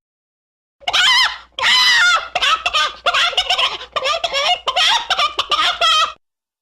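Chicken squawking and clucking: a rapid run of wavering, pitched calls that starts about a second in and cuts off abruptly near the end.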